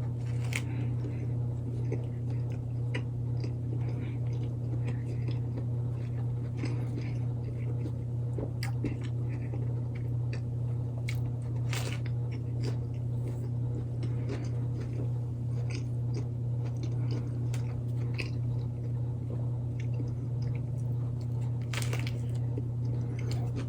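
A person biting and chewing a breaded chicken sandwich with mayo and lettuce close to the microphone, with scattered small wet clicks and crunches. A steady low electrical hum runs underneath.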